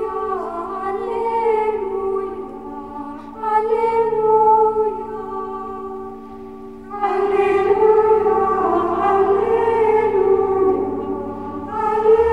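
Choral music: voices singing slow, sustained chords, with new phrases swelling in about three and a half seconds in and again about seven seconds in.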